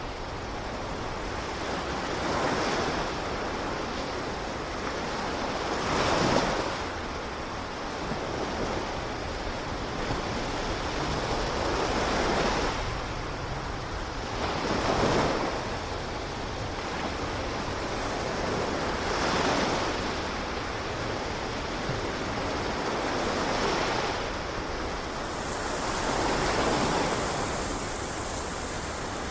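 Ocean surf: a steady rush of water with waves swelling and breaking every few seconds.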